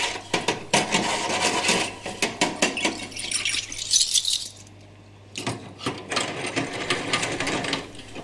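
Small brass clock wheels and parts clinking and rattling against a metal dish as they are picked out of rinse water by hand, in two spells of rapid clicks with a short lull between.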